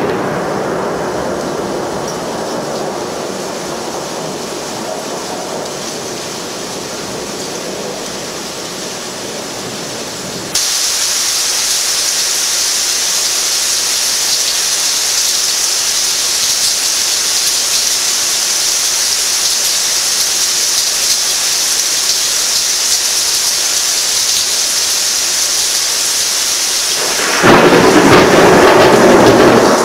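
Thunderstorm: thunder rumbling and fading over the rain, then about ten seconds in a sudden change to a loud, steady hiss of heavy rain. Near the end a loud thunderclap breaks and keeps rumbling over the downpour.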